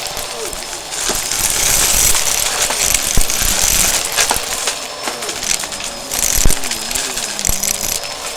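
Vacuum cleaner running, with a steady motor whine under a rush of air that swells and fades as it is pushed back and forth. Scattered sharp clicks and rattles run through it.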